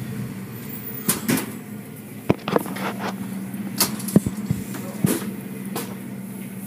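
Automatic car wash tunnel machinery running with a steady hum, with scattered sharp knocks and slaps at irregular intervals, about eight in all.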